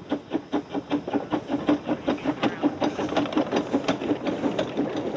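Narrow-gauge steam locomotive passing while hauling passenger carriages, with a rapid, even beat of about five strokes a second.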